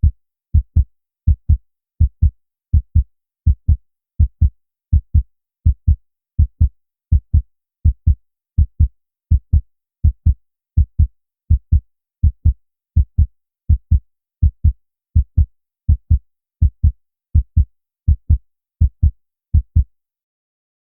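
Human heartbeat: the paired lub-dub of the first and second heart sounds repeating evenly at about 80 beats a minute. It stops shortly before the end.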